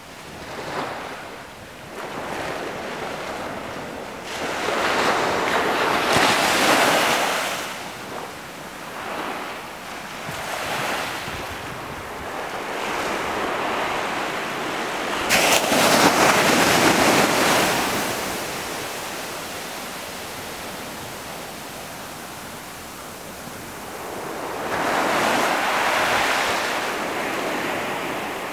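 Small ocean waves breaking and washing up a sandy beach: a steady rush that swells and fades, with three louder surges, the middle one, about fifteen seconds in, starting with a sharp crash.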